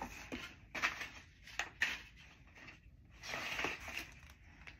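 Rustling and light knocks of handling as baby clothes are pulled out of a cardboard box: several short sharp rustles in the first two seconds, then a longer rustle a little after three seconds in.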